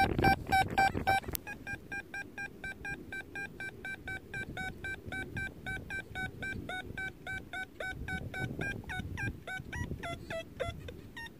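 Teknetics Patriot metal detector in its DP audio mode giving a rapid string of short beeps, about four a second, as its coil is swung. Most beeps sit at one pitch; in the second half some come out lower and falling in pitch.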